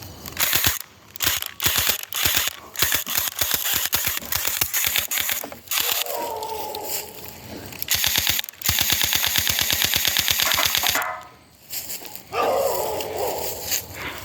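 Electric Orbeez gel-ball blaster firing: a few single shots, then rapid full-auto bursts, the longest lasting about two seconds.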